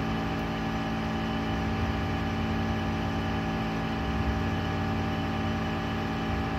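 Steady machine hum, with a low drone under a set of fixed tones.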